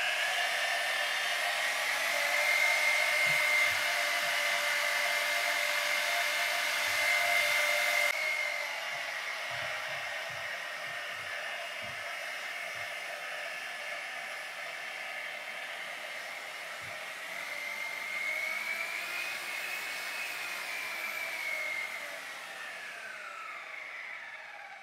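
Corded portable bandsaw's motor running with a steady whine, its speed held by a screw lever pressing on the trigger. Its pitch rises briefly toward the end, then falls and fades as the speed is wound down, with a few light knocks in the middle.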